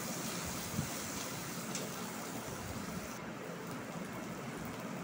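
Shallots, curry leaves and ginger-garlic paste sizzling in oil in a kadai: a steady hiss like light rain, with a couple of faint scrapes of the steel spatula in the first two seconds. The highest part of the hiss drops away a little after three seconds.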